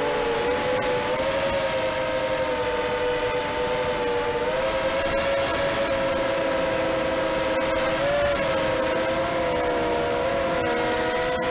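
Diatone ET150 quadcopter's brushless motors and propellers whining in flight on a 3S battery, several close pitches running together and wavering slightly as the throttle shifts.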